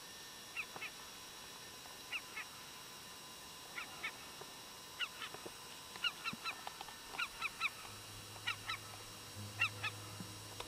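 Geese honking in the distance: short calls, singly and in quick runs, coming more often from about six seconds in. A low steady hum joins near the end.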